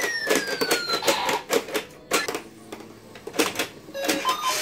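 Toy pinball gumball machine in play: a rapid, uneven run of plastic clicks and clacks as the ball hits the flippers and bumpers, with a falling electronic tone from the machine in the first second.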